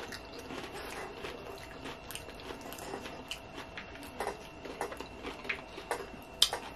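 Close-miked chewing and mouth sounds of someone eating cheesy nachos, with small irregular clicks and smacks and a plastic fork picking through the food in a paper bowl. A sharp click about six and a half seconds in is the loudest sound.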